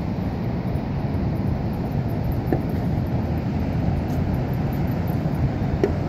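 Ocean surf breaking on the beach: a steady, low wash of noise with no letup.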